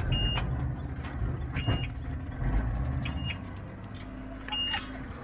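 Electric rickshaw's reversing buzzer beeping, one short high beep about every second and a half, four times, over a low rumble from the moving vehicle.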